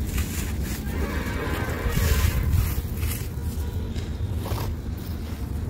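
Dry, gritty sand chunks crushed and crumbled by hand: gritty crackling and the patter of falling grit, loudest about two seconds in, over a steady low rumble.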